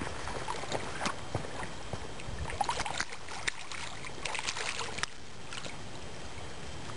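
Water splashing and trickling at the shoreline, with scattered small clicks and knocks that come thickest in the middle of the stretch.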